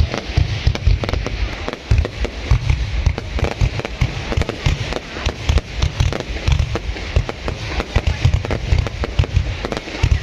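A dense barrage of aerial firework shells bursting: rapid, overlapping bangs and pops with no break.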